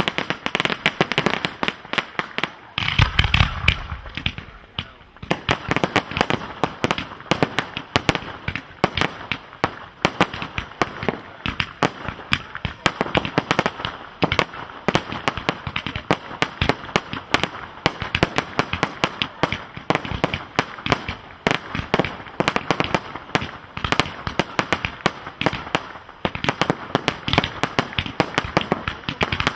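Professional firework display: aerial shells and cakes firing in a dense, rapid run of pops and crackles, with a heavier deep boom about three seconds in.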